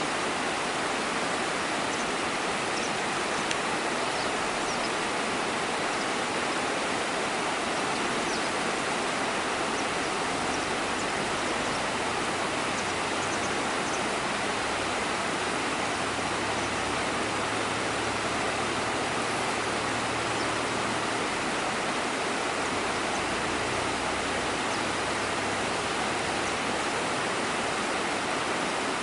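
Steady rushing of flowing water, an even hiss that does not let up.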